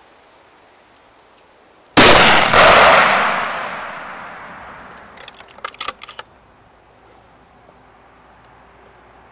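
A single .308 Winchester rifle shot about two seconds in: a sharp crack with a rolling echo that dies away over about two seconds. About three seconds later comes a short run of metallic clicks.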